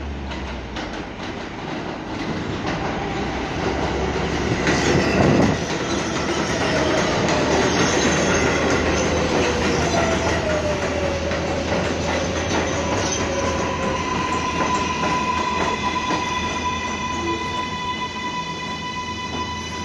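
R188 subway trains rolling on steel rails: wheel rumble and clatter that swells loudest about five seconds in, a wheel squeal gliding downward in pitch a little later, and a steady electric motor whine running on through the second half.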